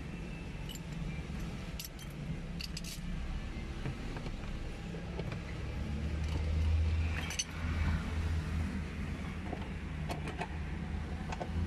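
Scattered light metal clinks and taps, as of hand tools being handled, over a steady low engine hum that grows louder for about a second and a half around six seconds in.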